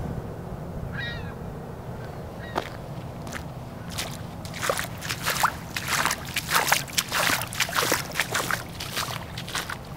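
A crow caws once about a second in. From about two and a half seconds in, footsteps splash and crunch through shallow water on a wet gravel trail, about two steps a second.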